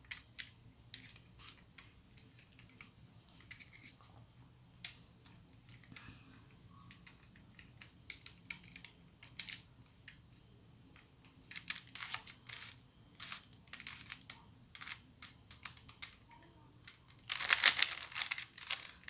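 Octagon cube twisty puzzle being turned by hand: irregular plastic clicks of its layers, sparse at first, coming quicker about halfway through, with a dense flurry of rapid turning near the end.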